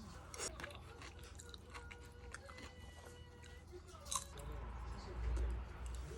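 A person chewing and biting food close to the microphone, with a few sharp clicks, one about half a second in and another about four seconds in.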